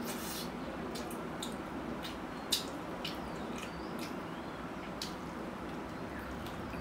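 Close-up chewing and lip-smacking of a person eating rooster curry and rice by hand: scattered short wet clicks and smacks, the sharpest about two and a half seconds in, over a steady background hiss.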